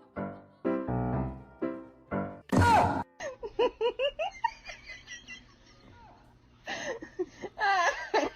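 Light piano music with short repeated notes, cut off about two and a half seconds in by a loud high squeal. A run of short, high, quick voice-like squeaks and giggly sounds follows, pausing briefly before more of them near the end.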